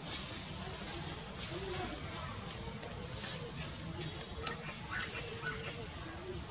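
An animal's short, high-pitched chirps, each a quick down-and-up sweep, repeated four times about one to two seconds apart, over steady outdoor background noise, with a single sharp click a little after the middle.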